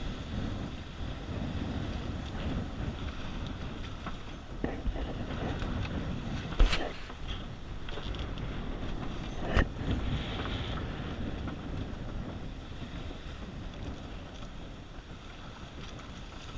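Wind buffeting the microphone and water sloshing against the hull of a small fishing boat, with two sharp knocks a few seconds apart near the middle.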